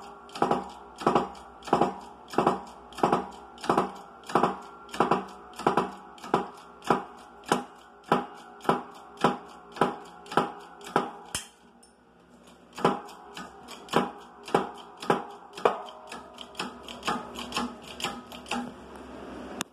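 Rhythmic metallic clanking, about two strokes a second with a ringing tone, as a new front wheel bearing is pressed into a Scion xA steering knuckle through bearing driver cups. The clanking pauses briefly about halfway, then resumes and fades near the end.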